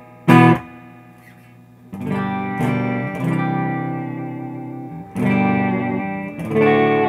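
Electric guitar played clean through a KLD Pilot15 15-watt 6L6 tube amp kit with its spring reverb on. There is one short, sharp strum near the start, then chords ringing out from about two seconds in, with fresh chords struck about five and six and a half seconds in.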